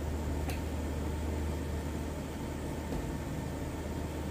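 Steady low hum and hiss of a gas stove with pots of water heating on it, with a single light click about half a second in.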